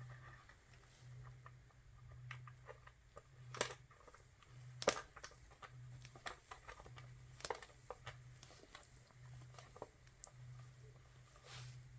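Faint, irregular clicks and light taps of small parts and casing being handled as a home theatre unit is reassembled, over a faint low hum. The sharpest click comes about five seconds in.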